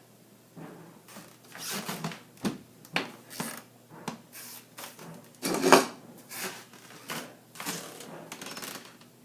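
Irregular scratching and rustling in short bursts, with a few sharp clicks, loudest about five and a half seconds in.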